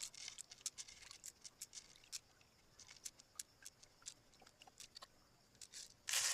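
Oyster shells and a knife clicking and scraping as the oysters are opened, in quick irregular small clicks, with a louder scrape near the end.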